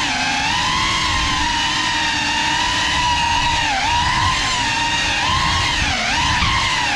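Brushless motors and ducted propellers of a GEPRC CineLog 35 cinewhoop FPV drone in flight, a steady buzzing whine over a rough rumble. The pitch dips and climbs back twice in the second half as the throttle is eased and raised.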